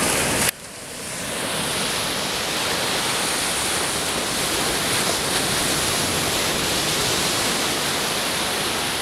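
Baltic Sea surf washing onto a sandy beach, a steady hiss of breaking waves. It drops away abruptly about half a second in and swells back within a second.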